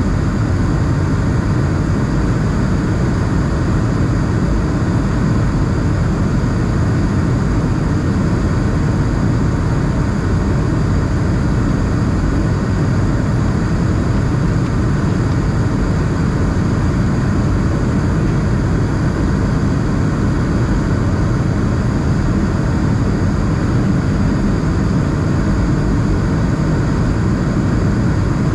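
Steady cabin noise inside an Airbus A220 in cruise flight: the even, low drone of air rushing past the fuselage and its Pratt & Whitney PW1500G geared turbofan engines running, heard from a seat by the wing.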